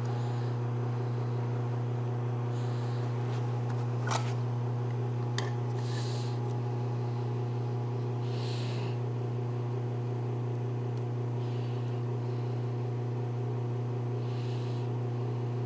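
Steady low machine hum from a CNC router table being set up, with two sharp clicks about four and five seconds in and short soft hisses every few seconds.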